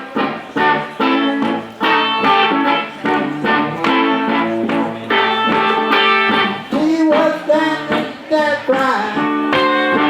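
Blues band playing live, with a guitar leading in the gap between sung lines. Chords are struck in a steady rhythm, and notes bend up and down about two-thirds of the way through.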